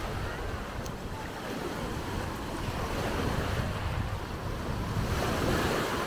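Sea surf washing onto the beach, with wind buffeting the microphone as a steady low rumble.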